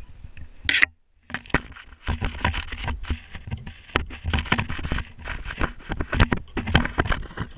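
Dense, irregular scraping and crackling of birch branches and clothing rubbing against the camera as a skier holds onto a birch tree, with a brief dropout about a second in.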